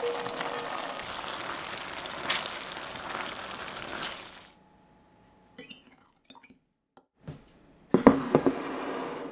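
Thai green curry sizzling in a stainless steel sauté pan as it is stirred, with a utensil knock about two seconds in. The sizzle stops at about four and a half seconds. Near the end come a few sharp, ringing clinks of crockery and cutlery.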